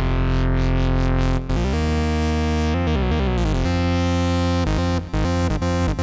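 Arturia PolyBrute analog polyphonic synthesizer playing held chords that change every second or two, the brightness of the sound opening and closing.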